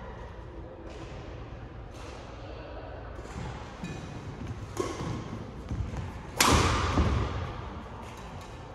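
Badminton rally: sharp racket hits on the shuttlecock about once a second, with players' shoes thudding on the court. The loudest, a crack with a heavy thud, comes about six and a half seconds in and echoes in the large hall.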